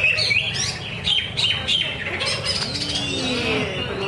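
Greater green leafbird (cucak ijo) singing a fast, varied run of chirps and warbles, busiest in the first second. A lower gliding note comes in about three seconds in.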